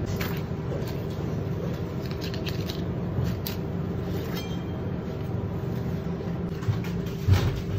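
A knife slicing and scraping through a whole tuna's skin and flesh in short strokes, over a steady low hum. A single heavy thump comes near the end.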